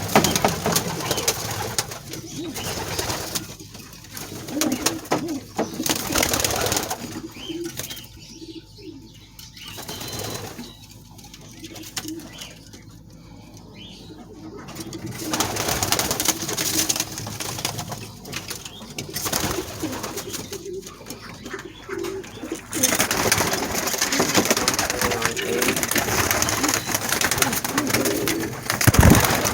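Domestic pigeons cooing in a loft, low warbling coos over a steady rustling noise that grows louder about 23 seconds in.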